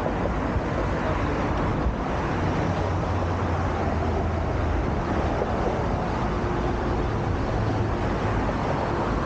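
Steady road-traffic noise along a city avenue, with a vehicle engine's low hum that is strongest in the middle.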